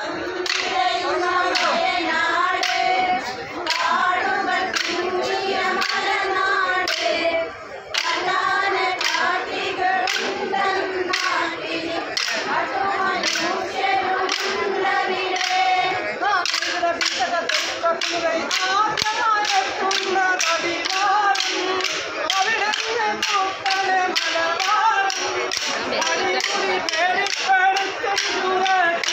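Group of voices singing a Kerala kolkali folk song in chorus, kept in time by sharp clacks of short wooden kolkali sticks struck together, about two a second.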